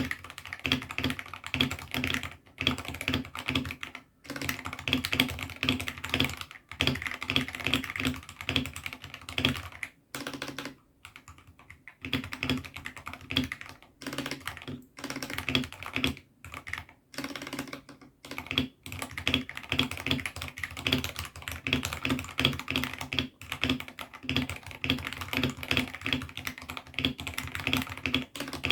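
Fast typing on a mechanical keyboard with AKKO Sakura linear switches: a dense run of key clacks, broken by short pauses a few times.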